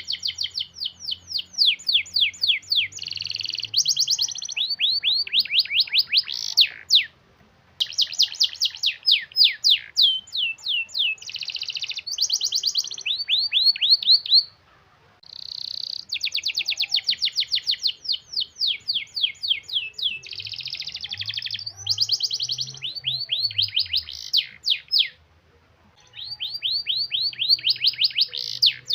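Domestic canary singing long rolling trills: fast runs of rapidly repeated high notes strung into long phrases. The song breaks off briefly three times.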